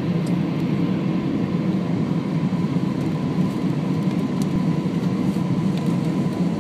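Steady cabin noise of an Airbus A320 airliner on approach: a constant low rumble of engines and rushing air, with a faint steady tone in it.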